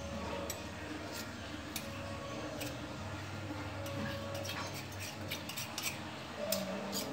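Sharp, irregular clicks and snips from hand cutting with a small kitchen tool, coming quicker and closer together near the end.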